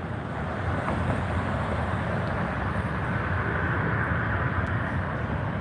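Steady low vehicle rumble that swells slightly through the middle, with a faint thin whine over it about halfway through.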